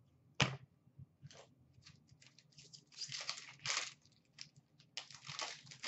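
Hockey card pack wrapper crinkling and tearing as it is opened, with cards rustling in the hands; a sharp knock about half a second in.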